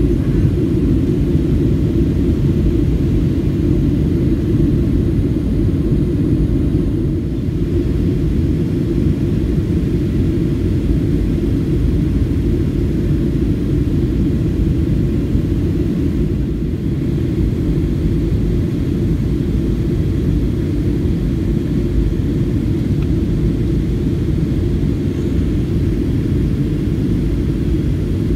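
Steady low rumble inside the cabin of a Southwest Airlines Boeing 737 on approach: jet engine and airflow noise heard from a window seat.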